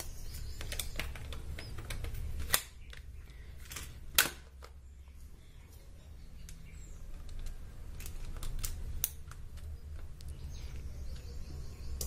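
Clicks and knocks of hard plastic as a battery compartment cover is fitted onto the underside of a toy RC quad, with two louder snaps about two and a half and four seconds in, then lighter handling clicks, over a low steady hum.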